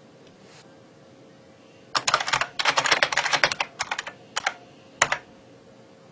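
Typing on a computer keyboard: after a quiet start, a quick run of key clicks begins about two seconds in, followed by a few scattered keystrokes near the end.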